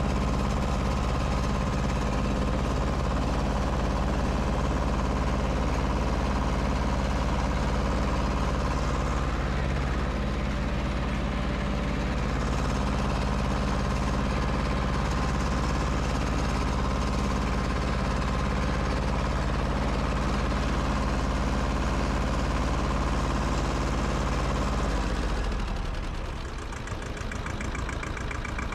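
Ford F1500 compact tractor's 19.9 hp diesel engine running steadily while the tractor is driven. About 25 seconds in, the engine note drops and gets a little quieter.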